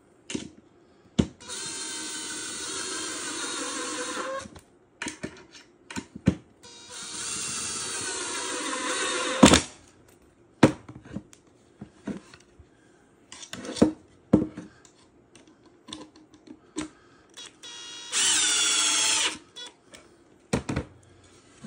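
Makita 18V cordless impact driver driving screws into the pre-drilled finger-jointed corner of a wooden hive box: three runs of motor whine, about three seconds, nearly three seconds ending in a sharp knock, and a short one near the end, with clicks and knocks of handling in between.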